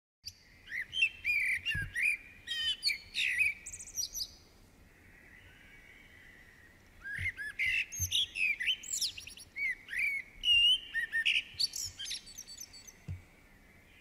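Songbirds singing: quick chirps, clear whistles and rapid trills, some overlapping, that pause for about three seconds midway and then start up again.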